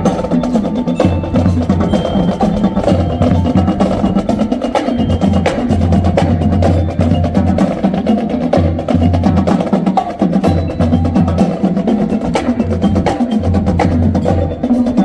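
Marching showband playing loudly, its drum section prominent: a repeating bass-drum beat under rapid snare and stick strikes, with bell-like mallet percussion among them.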